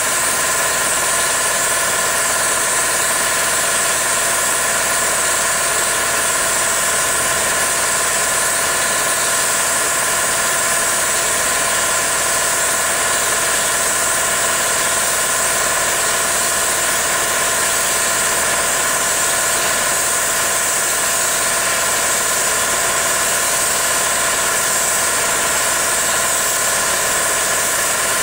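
Steady machine noise: a constant whine with a strong high hiss, unchanging throughout.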